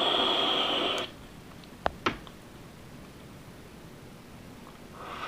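A person exhaling a long breath of vapor through the nose and mouth, cutting off about a second in, followed by two short clicks a fraction of a second apart.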